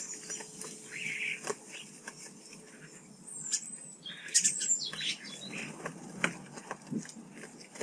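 Garden birds chirping, with short high calls and whistled notes over a scatter of small clicks and taps.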